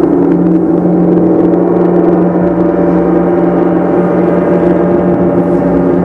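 Several large hanging gongs played continuously, ringing together in a loud, steady wash of many overlapping tones.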